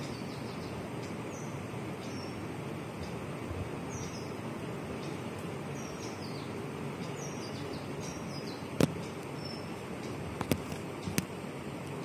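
House sparrows chirping faintly in short falling notes, scattered and at times several a second, over a steady hum of city background noise. Near the end come three sharp clicks, the first the loudest.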